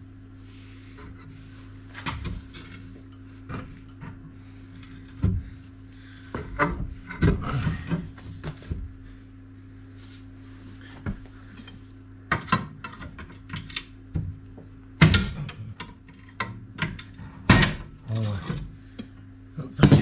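Metal tools clanking and scraping against car rear-suspension parts as the coil spring is worked free, irregular knocks with a few louder clanks in the second half. A steady low hum runs underneath.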